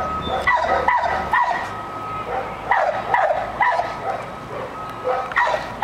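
A dog barking: short barks in two runs of three, then one more near the end.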